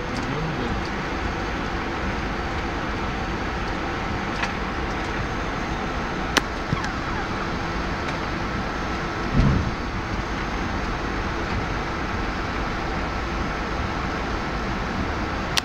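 Steady engine hum heard inside a Boeing 767 cockpit on the ground, with a faint steady tone through it. A dull thump comes a little past the middle, and a sharp click a few seconds before it.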